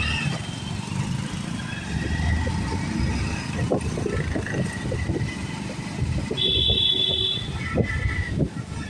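Road traffic with motor vehicle engines running. A brief high-pitched tone sounds about six and a half seconds in.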